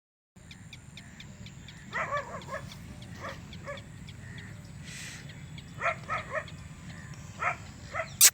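Short animal calls, about eight of them, some in quick pairs, over a low rumble.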